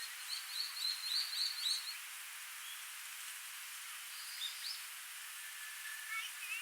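Small stream flowing with a steady hiss while a songbird chirps over it: a quick run of high twittering notes in the first two seconds, then a couple of short calls in the middle and a few more near the end.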